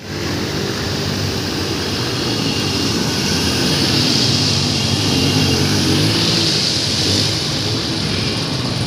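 Motorcycle engines running as the bikes ride through floodwater on a street, under a steady high hiss of splashing water.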